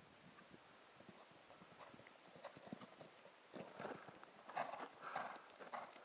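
Hoofbeats of a cantering horse on a soft arena surface, faint at first and growing louder from about three and a half seconds in as the horse comes close.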